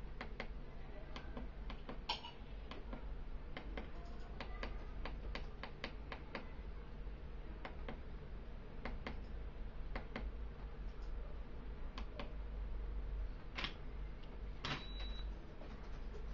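A run of irregular small clicks, one to three a second, over a steady low hum, with two louder clicks near the end.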